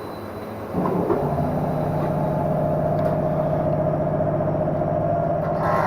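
A kei car's small engine starts about a second in and settles into a steady idle hum.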